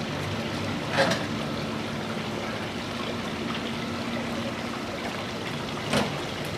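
Steady rushing outdoor background noise, with two short sharp knocks, about a second in and near the end.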